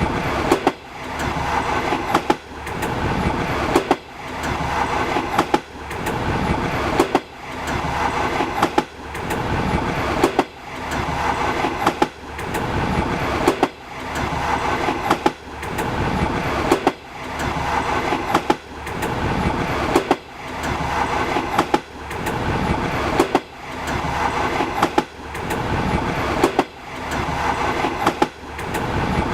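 Train running along jointed track: a steady rumble with the wheels knocking over a rail joint about every two seconds.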